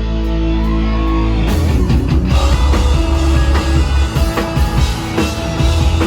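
Rock band playing live: a held, ringing chord over a sustained low bass note, then about a second and a half in the drums and guitars come in together as the song starts.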